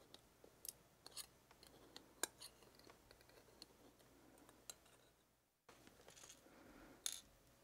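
Faint, scattered small metallic clicks and ticks of steel tweezers against the pins and brass plug of an American 1100 padlock as its pins are pulled out and laid on a pin tray. The sharpest click comes a little over two seconds in.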